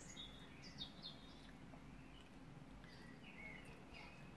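Near silence, with faint small-bird chirps: a few short high calls at the start and again near the end.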